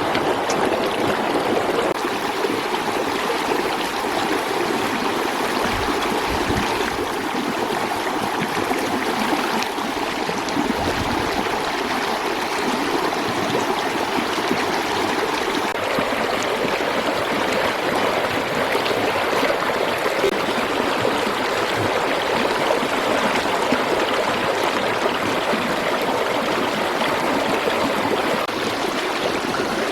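Steady rushing of running water, like a stream flowing, with a faint held tone through the first half and a couple of dull low thuds.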